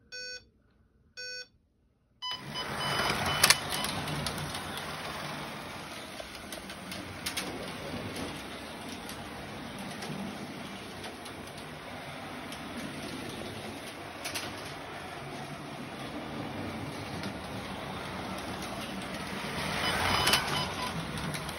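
Carrera Digital 124 start light beeping twice in a countdown, then the race starts about two seconds in: the small electric motors of several slot cars whirring steadily as they lap the plastic track, with occasional clicks, louder near the end as the cars pass close by.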